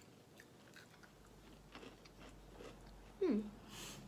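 Chewing and faint crunching of a homemade Nutella cookie, close to the microphone. About three seconds in, a voice gives a falling 'mmm' that settles into a steady low hum.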